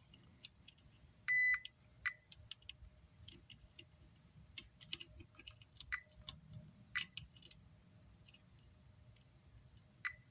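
Multimeter beeping and probe tips clicking on the amplifier's circuit board while its diodes and transistors are tested for a short. There is one beep of about a third of a second just over a second in, then several brief chirps and scattered small clicks.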